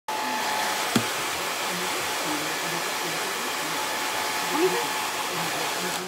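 Handheld hair dryer running steadily, blowing air over a toy poodle's coat, with a single sharp click about a second in.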